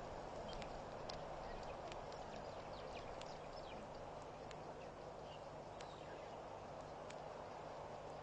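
Blacksmith plovers giving their sharp metallic 'tink' calls, like a hammer striking an anvil: many short clicks at irregular spacing, several a second. Under them is a faint steady hiss and low hum.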